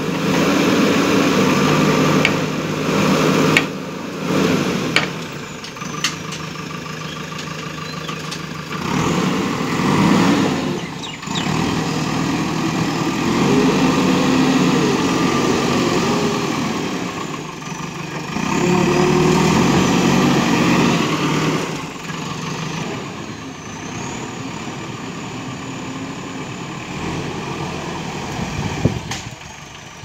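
JCB 3DX backhoe loader's four-cylinder diesel engine running under load, its sound swelling several times as the machine works the backhoe arm and drives over loose soil. A few sharp knocks stand out.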